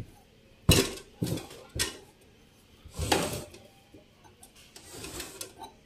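Knocks and clunks on the metal case of an Ashley HMD48 power amplifier as it is handled: a sharp knock under a second in, two lighter ones just after, a longer clatter about three seconds in and a few small taps near the end.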